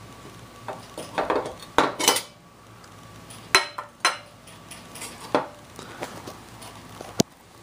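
Glass and metal parts of a kerosene lamp clinking and knocking as they are handled, a scatter of sharp clinks with short ringing; the loudest come about three and a half seconds in and just after seven seconds.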